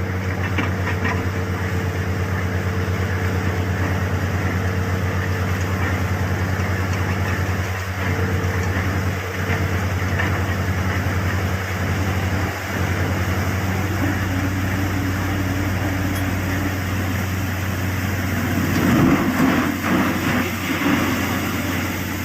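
Borewell drilling rig's engine running steadily with a deep, even hum. A louder, rougher noise swells briefly about three-quarters of the way through.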